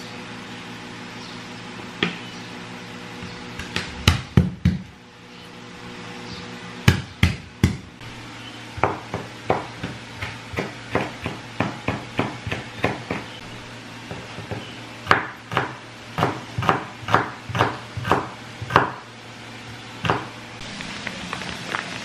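A chef's knife chopping garlic on a wooden cutting board: a few scattered knocks at first, then a run of quick, regular chops at about two to three a second, over a steady low hum.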